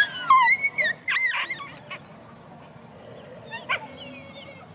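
Dogs whining and yelping in short, high-pitched cries that fall or arch in pitch. A cluster comes in the first second and a half, with a few fainter ones about three and a half seconds in.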